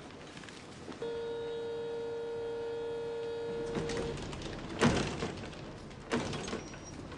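A passenger vehicle's door warning buzzer sounds steadily for about three seconds, then the doors shut with two loud clunks about a second apart.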